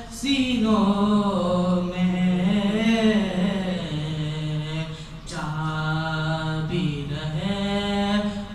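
A man's voice chanting an Urdu manqabat unaccompanied, drawing out long held notes that bend slowly up and down. He sings two long phrases, with a short breath between them about five seconds in.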